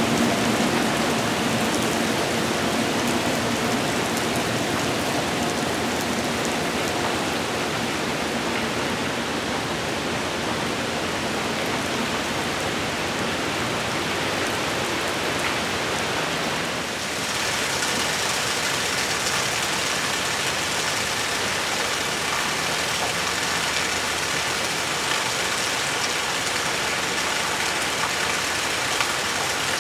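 Heavy rain falling steadily, with the steady tones of a passing train fading away over the first several seconds. About seventeen seconds in, the rain takes on a hissier sound.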